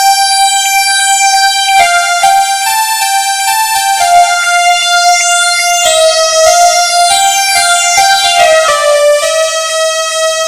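Instrumental ringtone melody played in a bright electronic keyboard tone: a single line of held notes stepping up and down, with no accompaniment.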